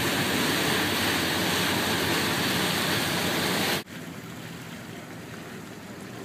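Loud, steady rushing noise of wind and water aboard a moving fishing boat, which cuts off abruptly about four seconds in to a much quieter low rumble.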